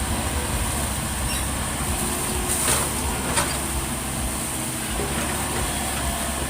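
Excavator's diesel engine running steadily, a continuous low rumble.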